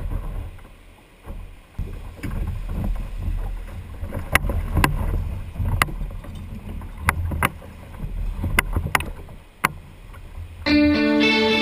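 Surf washing around a sit-on-top kayak as it is pushed off the beach and paddled out, with low rumbling from water and wind and a series of sharp knocks from about four seconds in. Music comes in near the end.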